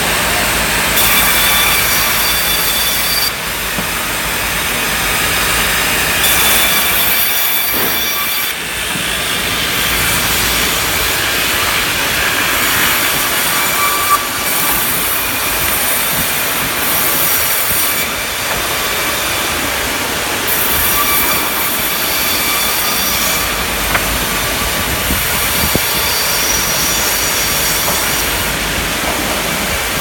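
Sawmill saw machines running and cutting timber into planks: a loud, steady high-pitched whine with shifting tones over a continuous hiss.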